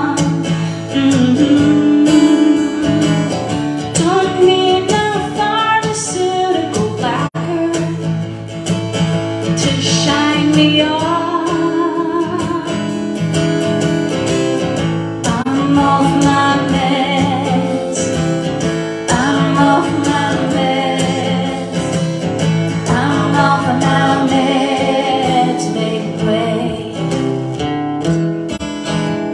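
A woman singing a song with held, wavering notes over strummed acoustic guitar, played live.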